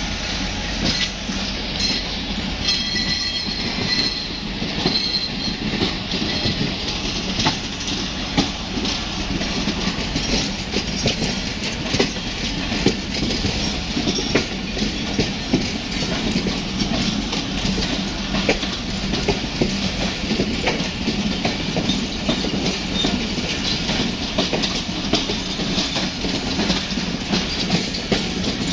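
Passenger train rolling along a station platform, its wheels clicking over the rail joints in a steady, uneven run of knocks over a low rumble. A brief high-pitched squeal sounds about three seconds in.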